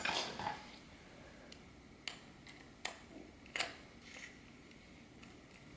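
Light, sharp clicks of a tiny set screw and a jeweler's screwdriver on the lock's metal knob: three distinct clicks from about two to three and a half seconds in, then a fainter one.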